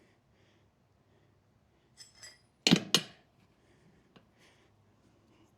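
Metal tyre levers clinking, then two sharp metallic clanks in quick succession just before the middle, with a faint tick later on.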